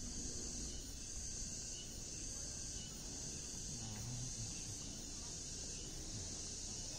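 Insects buzzing in a steady high drone, with a low rumble underneath.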